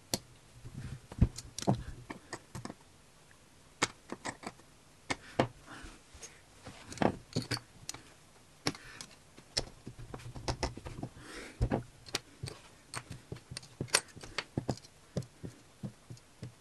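LEGO bricks being pressed together and small plastic pieces picked up and set down on a table: an irregular string of sharp clicks and taps.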